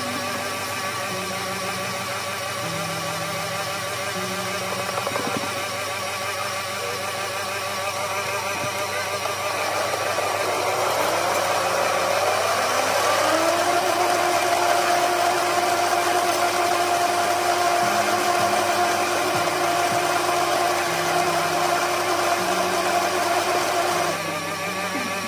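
Electric countertop blender motor running steadily. About halfway through it speeds up with a rising whine to a higher, steady pitch, and it drops back near the end. Soft background music plays underneath.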